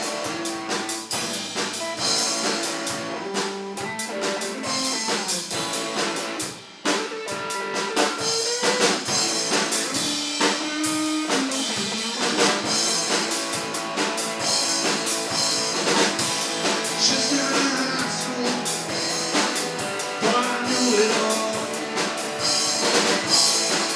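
A live rock band plays an instrumental stretch between sung verses, led by drum kit and guitar. The band drops out briefly about seven seconds in.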